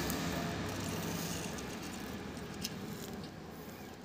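Faint gritty rolling of a small toy car's plastic wheels on sandy concrete, fading away as the car slows, with a couple of small clicks near the end.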